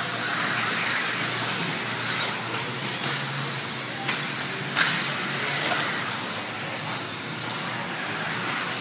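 1/10-scale electric RC buggies with 17.5-turn brushless motors racing: a steady high hiss of motors and tyres on the track, with one sharp knock about five seconds in.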